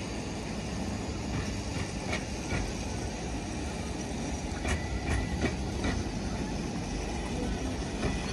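A cable-hauled Great Orme Tramway car rolling past on its steel rails: a steady low rumble, with a few clanks and knocks from the running gear around the middle and a brief high squeal near five seconds in.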